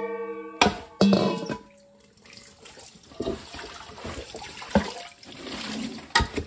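Tap water running into a steel sink as a stainless steel basin and a cooking pot are rinsed, with several sharp knocks of the pot and basin against the sink. Background music fades out in the first second or so.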